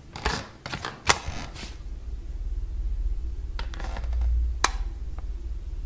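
Sharp clicks of a wall light switch being flipped: several in the first second and a half, then single clicks later on. Under them a low rumble swells from about two seconds in.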